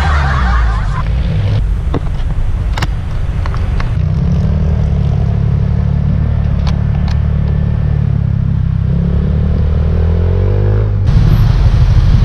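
Motor scooter riding in traffic, recorded through a GoPro's built-in microphone with no external mic: heavy, low wind buffeting over the engine. The engine note climbs slowly near the end, and the sound jumps at edits about four seconds in and again near the end.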